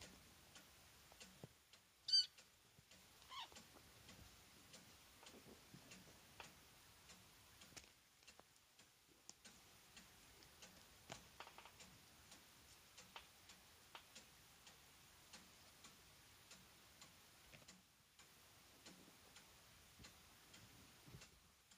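Kittens mewing: a short, high, thin mew about two seconds in and a falling mew about a second later, over faint, steady ticking.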